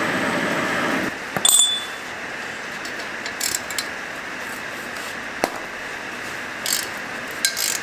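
Ratchet wrench clicking in short spells as it loosens the heat-shield bolts on a turbocharger, with a sharp metallic clink about a second and a half in.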